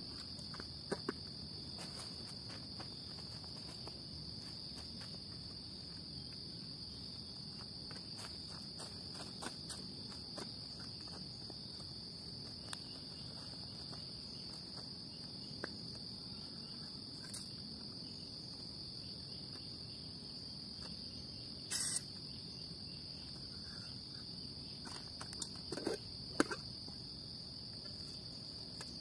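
Steady, high-pitched chorus of insects, an unbroken shrill drone. Scattered light clicks and clinks come from camping cookware and a portable gas stove being handled, with a short sharp noise about 22 seconds in and a brief clatter near 26 seconds.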